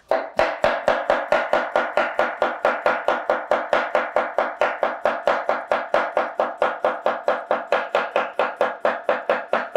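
Chef's knife rapidly slicing a cucumber on a wooden cutting board: a steady, even run of quick knocks, about four to five a second.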